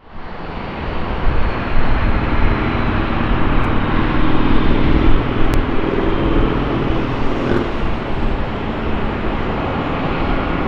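Steady jet engine noise with a strong low rumble and a faint high whine, fading in at the start.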